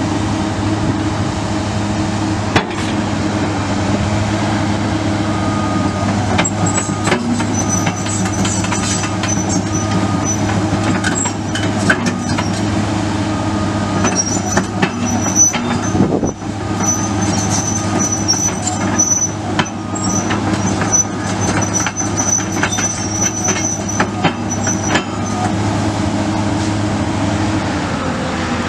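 The 6.7-litre six-cylinder turbo diesel of a Komatsu PC200LC-8 excavator running steadily under load, with repeated metallic clanks and a high, on-and-off squeal from the machine's moving steel parts.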